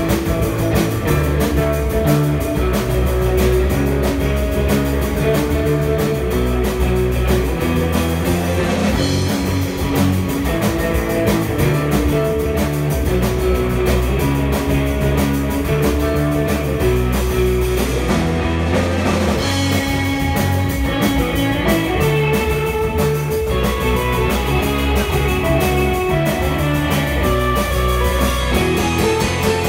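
Live instrumental surf rock band playing: electric guitars with a lead guitar line over a drum kit keeping a steady beat.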